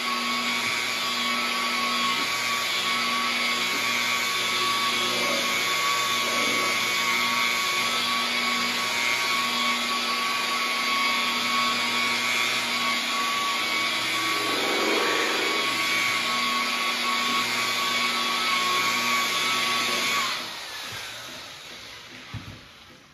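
Rotary polisher with a foam waffle pad running steadily at low speed while buffing cutting compound into a painted car door. About twenty seconds in it is switched off and winds down.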